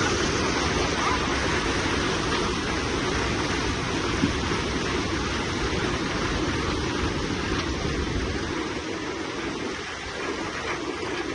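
Steady rushing of fast-flowing floodwater, an even roar of water.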